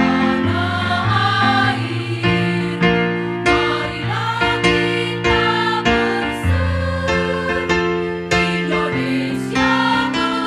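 A women's choir singing a march in parts, over a steady instrumental accompaniment with held low notes.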